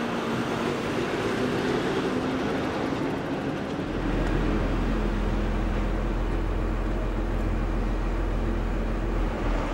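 Heavy truck engine running steadily, with a deep low rumble that comes in about four seconds in and holds.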